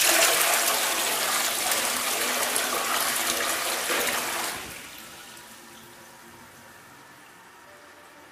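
Toilet flushing: a loud rush of water that lasts about four and a half seconds, then falls away to a faint steady hiss.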